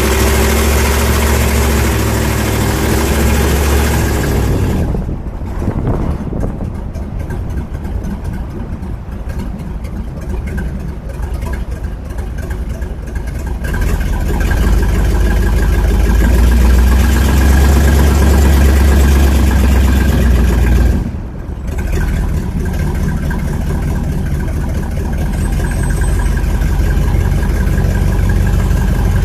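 Old car's engine running as the car drives, heard from right on the hood: a loud low rumble that eases off a few seconds in, builds again around the middle, and dips briefly a little past two-thirds of the way through.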